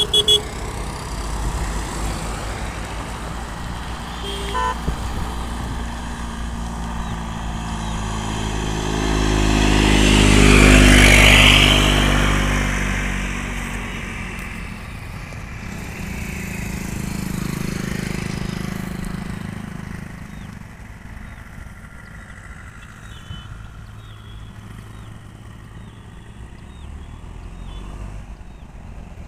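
Road traffic passing close by: a car approaches and passes about ten seconds in, its engine and tyre noise swelling loud and then fading, and motorcycles pass a few seconds later with a smaller swell. A short horn beep sounds right at the start.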